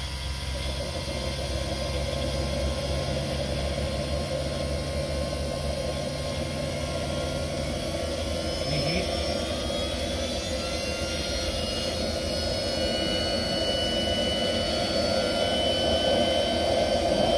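Small micro turbine (gas turbine) engine running and spooling up after ignition. A high, thin whine climbs slowly in pitch from about halfway through, over a steady rush of noise, and the overall level grows gradually louder.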